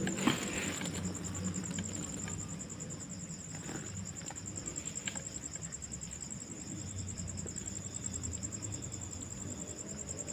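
Insects trilling steadily, a high, finely pulsing buzz, over a low uneven hum, with a few faint clicks.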